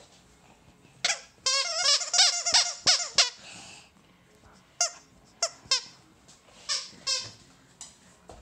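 Squeaky plush snake dog toy squeaking as it is squeezed: a quick run of wavering squeaks about a second in, then short single squeaks every half second or so.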